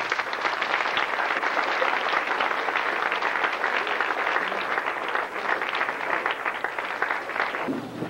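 Audience applauding, many people clapping steadily, which dies away just before the end.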